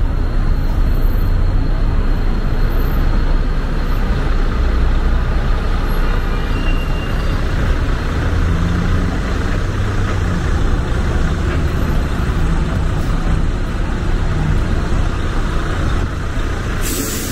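Downtown street traffic: a steady heavy rumble of passing cars, buses and trucks, with a short sharp hiss right at the end.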